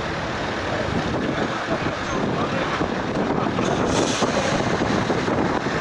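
Heavy-haulage truck and multi-axle low-loader carrying a 142-tonne boiler rolling slowly past: a steady rumble of diesel engine and tyres on the road, with wind buffeting the microphone.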